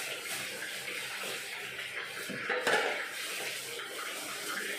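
Kitchen tap running steadily into a sink, with a brief louder clatter about halfway through.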